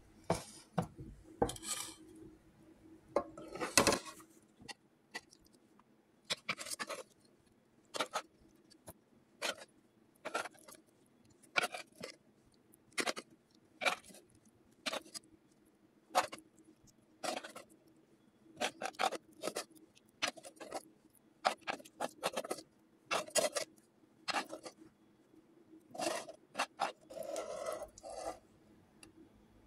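A serving spoon scraping curry from the bottom and sides of a nonstick pan in short strokes, about one a second, with the loudest scrape about four seconds in.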